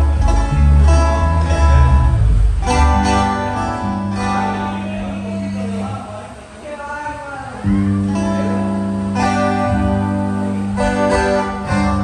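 A live band sound-checking: strummed acoustic guitar chords over electric bass notes. There are fresh chord attacks every second or so and a brief lull just past the middle.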